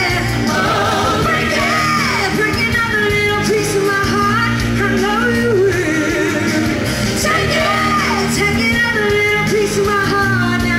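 A woman singing lead into a microphone over loud, amplified pop-rock music.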